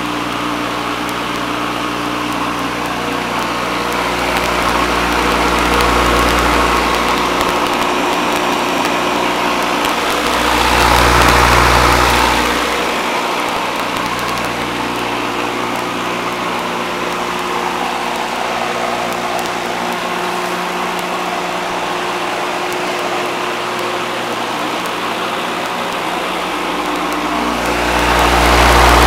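Century AC electric motor of a home-built electric lawnmower running steadily at 1725 RPM with the blade spinning: a pretty quiet, even hum. It swells louder a few times, around five seconds in, around eleven seconds in, and again near the end.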